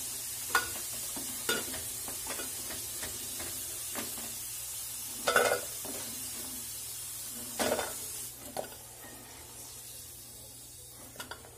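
Potato cubes sizzling in hot mustard oil in a nonstick pan while a plastic slotted spatula scoops them out, knocking and scraping against the pan a handful of times. The loudest knocks come about halfway through and again a couple of seconds later, and the sizzle slowly fades toward the end.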